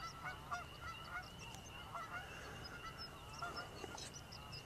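A flock of geese honking, with many short calls overlapping one after another, faint.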